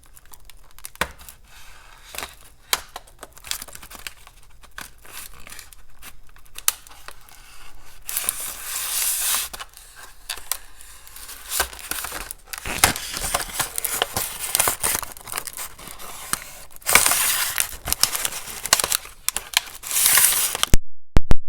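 Package opener hook in a Leatherman Surge multi-tool slicing open packaging: scattered clicks and handling at first, then several longer tearing, crinkling strokes from about eight seconds in.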